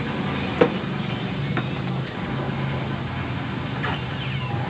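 Steady low mechanical hum, with one sharp tap about half a second in and a few fainter ticks.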